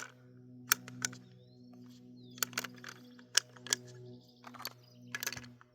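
Irregular sharp clicks and knocks, about a dozen, from the rifle and gear being handled at the shooting position, over a steady low hum.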